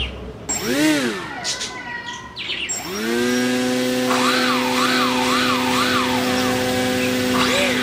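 A model aircraft's small electric propeller motor spins up about three seconds in, then runs with a steady whine. Bird chirps come and go over it.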